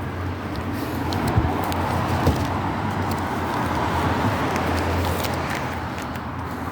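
Road traffic: a car driving past, its noise swelling and then easing off near the end, over a steady low hum.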